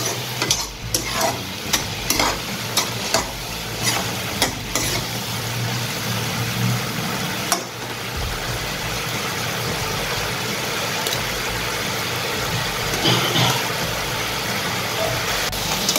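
A metal spatula scrapes and stirs potatoes and peas in a kadai in a string of short strokes for the first five seconds or so. After that comes a steady sizzle and bubbling: sugar-water cooking in ghee while the sugar melts.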